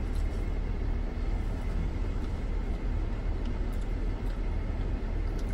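Steady low rumble of a parked minivan's idling engine heard from inside the cabin, with a few faint clicks.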